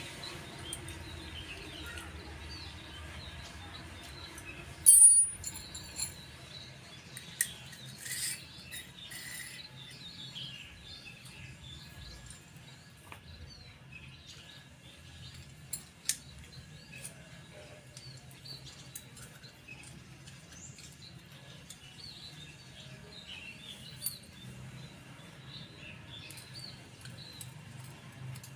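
Occasional sharp clicks and clinks of small steel parts of a homemade drill adaptor being handled and fitted together by hand. The loudest comes about five seconds in, and a few smaller ones follow. Birds chirp faintly in the background throughout.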